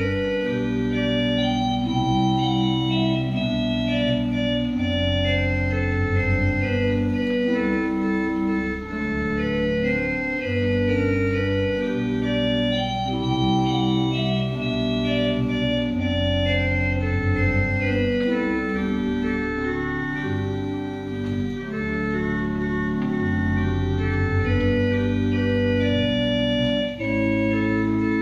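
Organ playing a slow hymn in sustained chords, with a deep pedal bass line under the manuals. There is a brief dip between phrases near the end.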